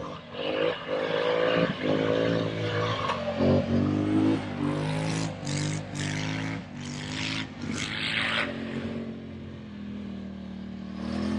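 Polaris Sportsman ATV engine revving up and down in surges as the four-wheeler climbs a snow drift, with short bursts of hiss in the middle.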